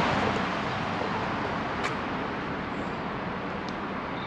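Steady noise of road traffic, with a faint click about two seconds in.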